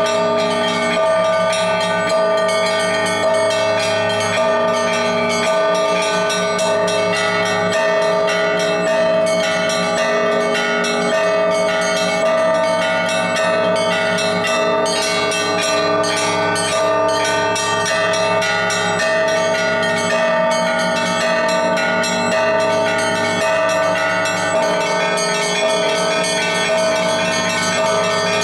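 Russian Orthodox church bells rung by hand as a continuous peal: many quick strikes on the smaller bells over the steady, sustained ringing of the larger bells.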